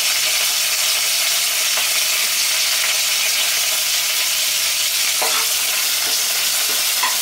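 Curry leaves sizzling in hot oil in a flat-bottomed pan, a steady hiss, with a couple of faint short knocks about five seconds in and near the end.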